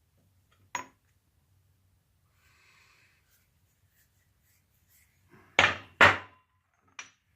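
Steel machinist tooling clanking as pieces are handled: one clank about a second in, two loud ones close together near the end, then a lighter ringing clink.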